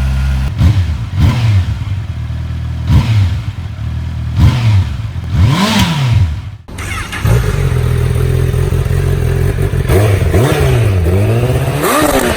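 Two Honda CBR motorcycle engines heard in turn through their stock exhausts. The first idles and takes about five short blips of the throttle, each rising and falling in pitch. After a sudden cut, the second idles and then revs up and down in quick blips near the end.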